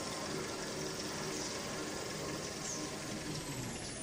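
Toilet paper and kitchen towel rewinding line running: a steady mechanical noise of motors and rollers turning. Near the end a faint high whistle begins and falls in pitch.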